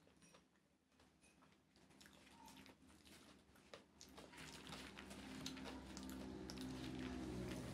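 Quiet hand-eating sounds: fingers squishing and mixing rice on a banana leaf, soft clicks, and chewing of a mouthful of rice about halfway through. A low steady hum grows louder in the second half.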